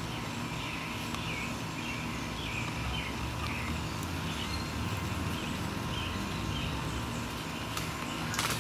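Outdoor ambience: a steady low hum with scattered bird chirps, and one sharp click near the end.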